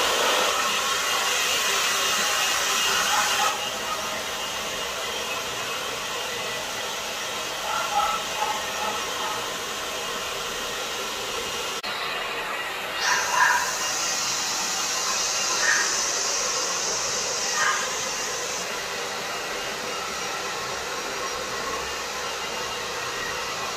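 Handheld NOVA hair dryer blowing steadily on a puppy's wet coat, a continuous airy hiss that gets brighter about halfway through.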